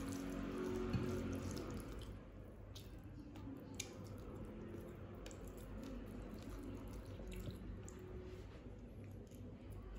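Eating by hand: fingers mixing and squeezing soft rice and fish on a plate, and chewing, heard as scattered small wet clicks and smacks over a low steady hum.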